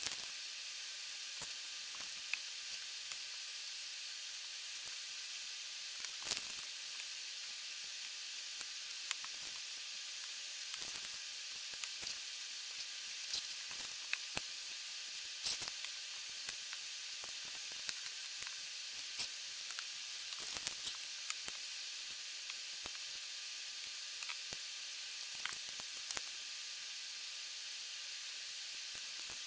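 Steady hiss with scattered light clicks and taps of plastic LEGO bricks being handled, set down on the table and pressed together.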